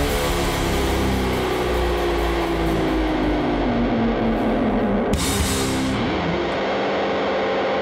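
Final bars of a rock song played live on distorted electric bass and drum kit: the bass slides down in pitch over several seconds, a last cymbal crash hits about five seconds in, and the bass is left ringing on a held, droning note as the song ends.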